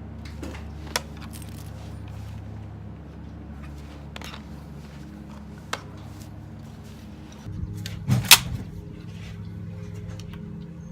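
A single sharp rifle shot about eight seconds in from a Blaser Tactical 2 straight-pull rifle in 5.56, firing 55-grain Wolf Gold ammunition, preceded by a few light clicks, over a steady low hum.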